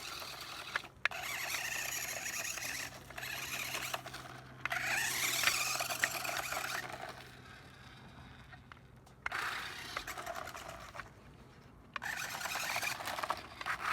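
Toy RC car's small electric motor whining in bursts as it is driven, with the pitch rising and falling with the throttle and the tyres scraping over the ground. It stops and starts about five times.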